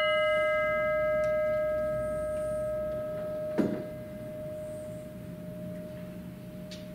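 A struck bell ringing out and slowly fading: one clear steady tone with higher overtones. A short knock comes about halfway through, after which only the main tone lingers. The bell is rung once after each name read in remembrance.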